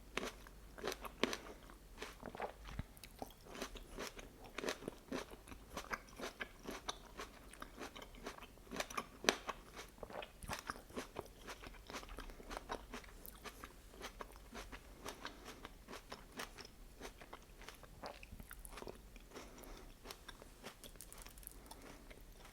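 Close-miked chewing of chicken lyulya kebab with vegetables: a steady run of wet crackling and crunching bites, growing sparser toward the end.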